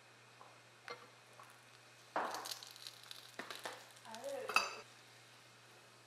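Tortilla with brown sugar spread frying in a hot pan: a burst of sizzling starts about two seconds in, with a few clinks and scrapes of a utensil against the pan, and dies away just before five seconds.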